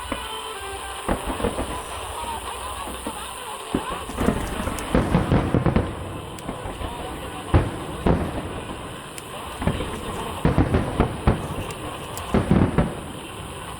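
Aerial fireworks shells bursting in clusters of sharp bangs, with the heaviest runs about four to six seconds in, around eight seconds in, and again near the end.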